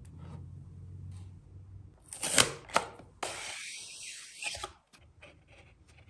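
Cardboard packaging handled and an Apple silicone phone case slid out of its paperboard sleeve: a loud rustle and a sharp click about two seconds in, then a steady scraping slide lasting about a second and a half, followed by light taps.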